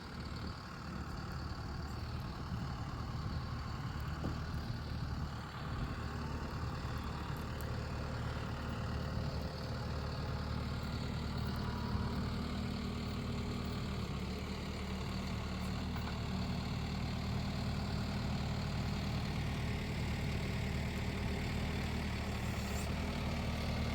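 Diesel farm engine idling steadily, a cold-weather tractor or combine engine warming up.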